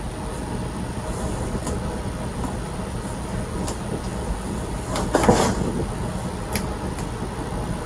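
Clear plastic protective film being peeled off a new black plastic Chevrolet bowtie emblem, with a louder crinkle about five seconds in and a few small clicks, over a steady background hum.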